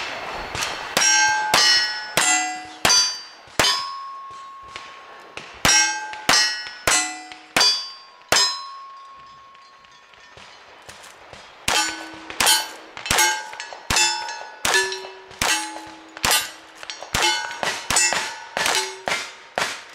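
A fast string of gunshots, each followed by the ringing clang of a steel target being hit: two runs of five shots, a pause of about three seconds, then about ten more in quick succession.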